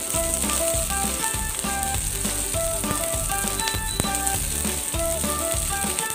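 Garlic and red onion sizzling in hot cooking oil in a frying pan. Background music with short melodic notes and a pulsing bass plays over it.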